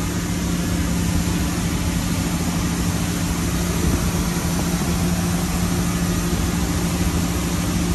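2018 Nautique GS24 wake boat running at a steady pace, its inboard engine giving a steady low drone over the rush of water and wind.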